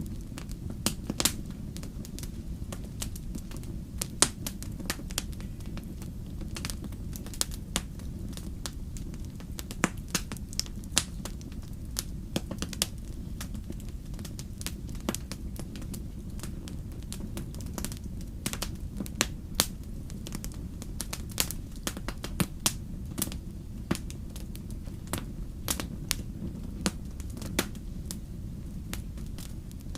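Wood campfire crackling, with irregular sharp pops and snaps scattered throughout over a steady low rumble.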